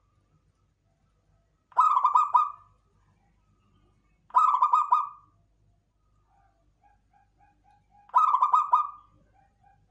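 Local zebra dove (perkutut lokal) cooing: three loud phrases, each a quick run of rapid notes lasting about a second, with a soft series of short low notes between the second and third.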